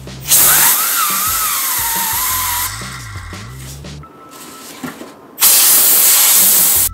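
Compressed-air blow gun hissing in two long blasts as it spins 3D-printed plastic planetary gears, with a wavering whine over the first blast; the second blast starts a little over five seconds in.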